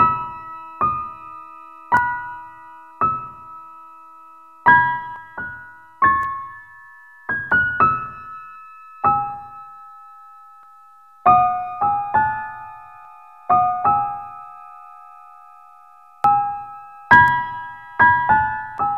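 Background music: a slow piano melody of single notes, each struck and left to ring and fade, with a few quicker notes near the end.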